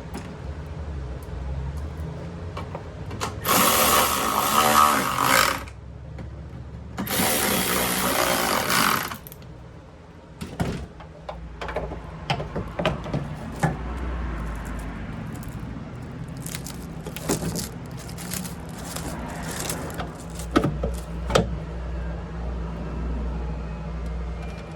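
A power drill or driver runs in two bursts of about two seconds each, followed by scattered clicks and knocks of parts being handled and fitted.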